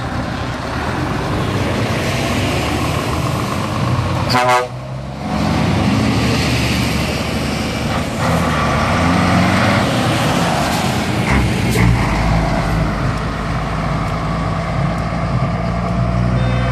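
Heavy trucks driving past with their diesel engines running, with horn toots among them.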